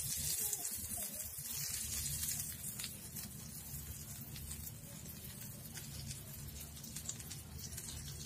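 Hot ghee tadka with cumin, dried red chilies and Kashmiri chili powder poured onto a bowl of cooked urad dal, sizzling and crackling as it hits. It is loudest for the first couple of seconds, then dies down to a fainter sizzle.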